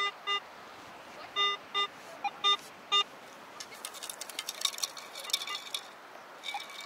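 Garrett AT Pro metal detector beeping six times in short bursts over about three seconds as it sweeps over a small target reading in the 40s, which turns out to be a scrap of foil. This is followed by about two seconds of rapid gritty clicking and scraping as a scoop digs and sifts sand.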